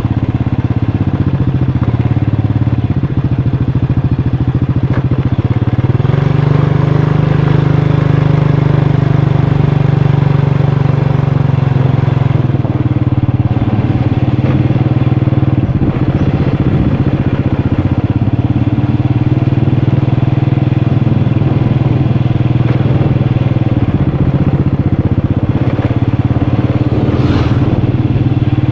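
Motorcycle engine running under way; its pitch rises about six seconds in as it speeds up, holds, then drops back a few seconds later and stays steady.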